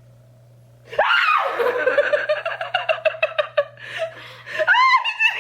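A sudden shriek about a second in, then a long run of rapid, pulsing laughter, ending in a high rising squeal.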